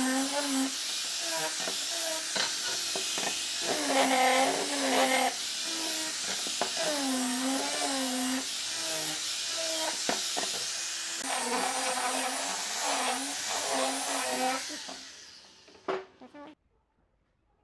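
Electric angle grinder with a sanding disc sanding a wooden board: a steady hiss of abrasive on wood over the motor's whine, its pitch dipping and rising again and again as the disc is worked along the board. About fifteen seconds in it winds down, followed by a couple of knocks.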